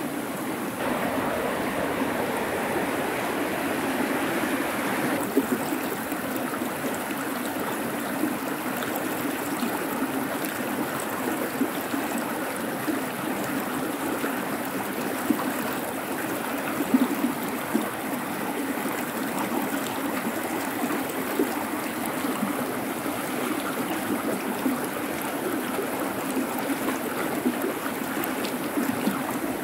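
River water rushing steadily over stones, a fast-flowing current.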